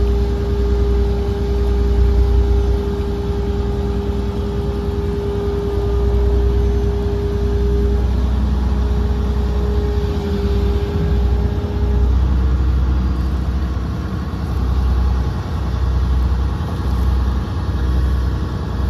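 Excavator's diesel engine running, heard from inside the cab: a steady low rumble with a held tone above it that shifts slightly about twelve seconds in.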